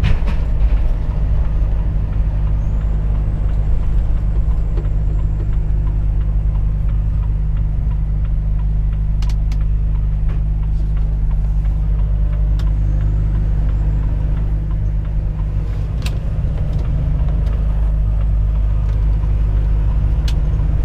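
Volvo FH 460 truck's 13-litre straight-six diesel and its road noise, a steady low drone heard from the cab. A few short, sharp clicks sound at irregular moments.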